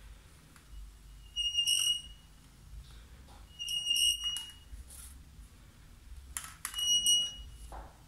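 Front disc brake of an Italika motorcycle squealing as the wheel turns: three short, high-pitched squeals, each about half a second long and spaced about two and a half seconds apart. The owner thinks the brake pads are glazed.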